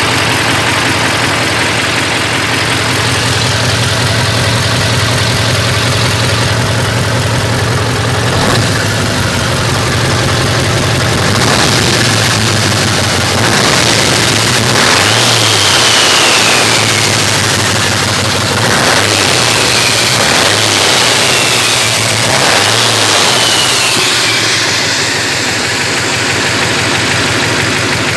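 V8 diesel truck engine running with its turbocharger removed, idling steadily and blipped up a few times about halfway through.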